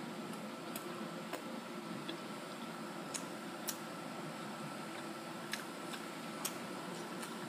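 Quiet room tone: a steady hiss with a faint high hum, broken by a few soft, scattered clicks.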